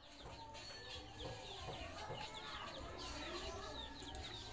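Faint chickens clucking in the background, with many short high chirps throughout.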